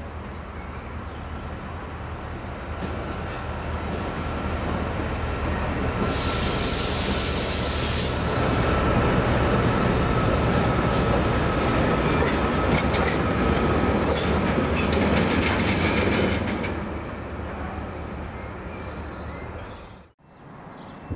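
A pair of Class 68 diesel locomotives passing with their engines droning steadily, with a thin steady whine above. A loud hiss lasts about two seconds, starting about six seconds in, and a run of wheel clicks over rail joints follows as the wagons roll by. The sound then fades, and breaks off abruptly near the end.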